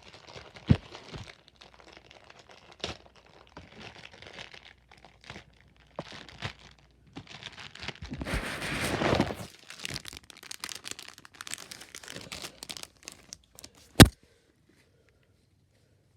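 Plastic packaging crinkling and rustling as it is handled and torn open, with small clicks throughout and a longer, louder stretch of rustling and tearing just past the middle. A single sharp knock near the end, then quiet.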